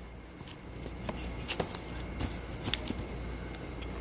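Light handling sounds: scattered small clicks and rustles as boxed firework fountains are put down and the next one picked up.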